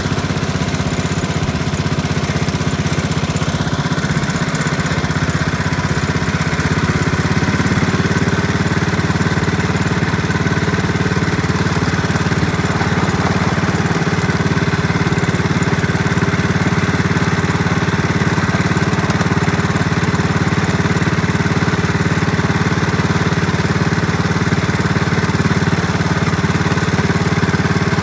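A small engine running steadily, getting slightly louder and changing its note about seven seconds in.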